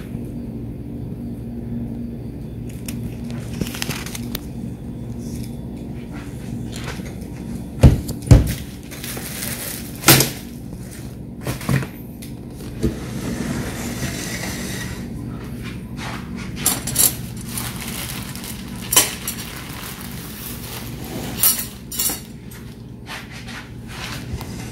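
Scattered knocks and clinks of kitchen handling, like utensils and dishes being set down, over a steady low hum. The sharpest knocks come about eight and ten seconds in.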